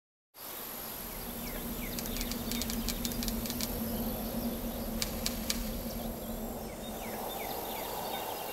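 Outdoor nature ambience: insects trilling steadily, with short chirps and scattered clicks over a steady low hum that fades out near the end.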